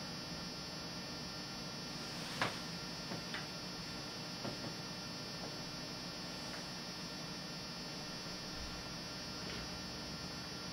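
Steady electrical mains hum with a few faint clicks, the loudest about two and a half seconds in.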